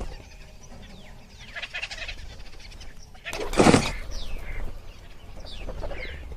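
Birds calling: several short chirps falling in pitch and one loud call about three and a half seconds in, over a low steady rumble.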